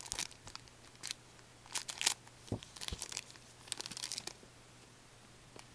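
A hockey card pack's wrapper crinkling and cards being handled by gloved hands: a run of short crinkling, rustling bursts over the first four seconds or so, then quiet.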